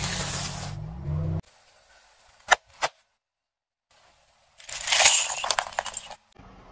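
Car tyre rolling onto a row of stacked wafer ice-cream cones, with two sharp cracks about two and a half seconds in. About four and a half seconds in, a bundle of chalk sticks crackles and snaps under the tyre in a dense run of snapping for nearly two seconds, the loudest sound here.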